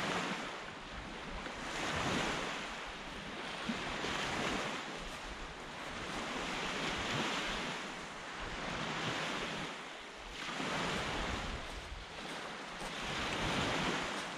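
Small waves breaking and washing up a sand beach, the surf swelling and fading every two to three seconds.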